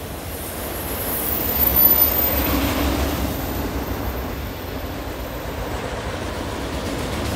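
Freight train of enclosed autorack cars rolling past on steel rails, a steady rumble of wheels that swells to its loudest about two seconds in, with a thin high squeal early on.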